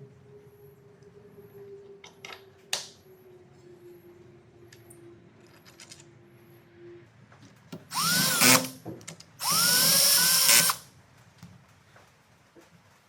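A handheld power drill run in two short bursts of about a second each, its motor whine rising in pitch as it spins up. A sharp click sounds a few seconds before.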